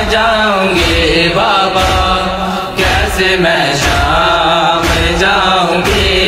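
Male voices chanting a noha, a Muharram lament, over a heavy slapping beat about once a second from matam (chest-beating).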